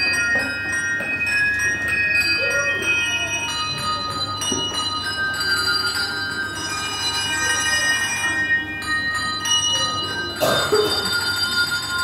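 Handbell ensemble playing a melody: handbells struck one after another, their clear tones ringing on and overlapping. About ten and a half seconds in, a louder, sharper stroke sounds.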